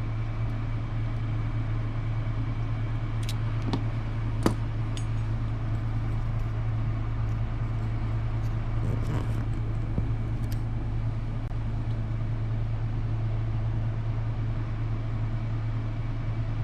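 A steady low hum with a few scattered light clicks and taps, the clicks most likely small tools working on the RC truck's front bumper.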